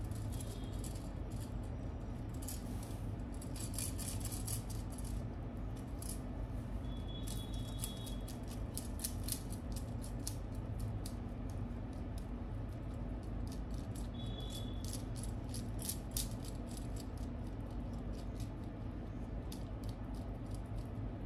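Bangles on a moving wrist clinking and jangling in irregular clusters, with a couple of brief ringing tones, over a steady low hum.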